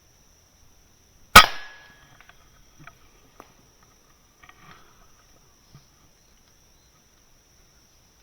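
A single air rifle shot about a second and a half in: one sharp crack with a short fading tail, followed by a few faint ticks.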